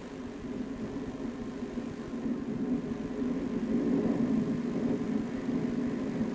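Steady low rumble of running machinery underground in a coal mine, growing a little louder about halfway through.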